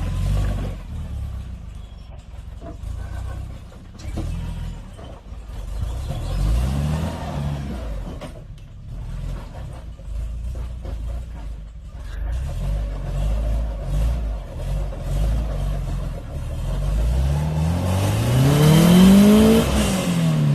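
Suzuki Samurai's engine working under load off-road, with a short rev about a third of the way in and a long climbing rev near the end, the loudest part, that peaks and drops away. Scattered knocks run through it.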